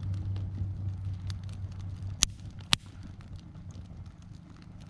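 Campfire of dry sticks crackling, with scattered small pops and two loud sharp pops a little over two seconds in, over a low rumble that fades out about three seconds in.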